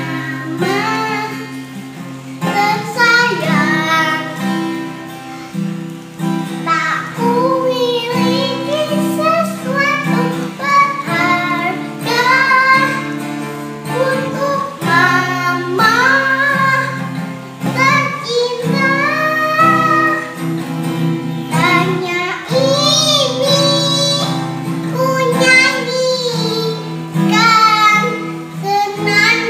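A young girl singing a song to the accompaniment of an acoustic guitar.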